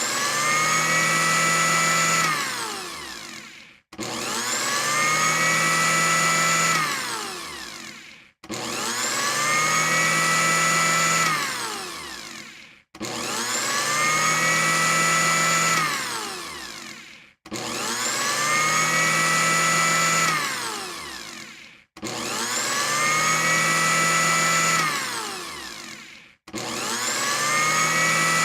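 Electric blender pureeing, switched on and off over and over. Each time the motor whine rises as it spins up, runs steadily for about two seconds, then winds down to a stop. A new burst starts about every four and a half seconds, seven times in all.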